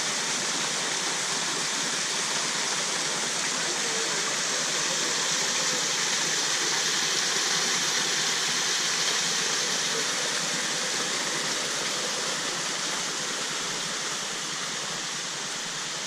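Small waterfall: thin streams of water falling from a rock face into a pool, making a steady, even rush. The falls are running low, well short of full flow.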